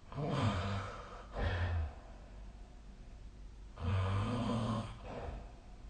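A sleeping person snoring: a rough snore of about a second right at the start, a shorter one just after, then another snore of about a second near four seconds in.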